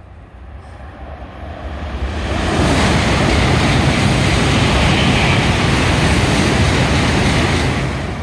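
N700-series Shinkansen passing through a station at high speed without stopping: a rushing roar of air and wheels that builds over the first two seconds or so, holds loud, and starts to fade near the end.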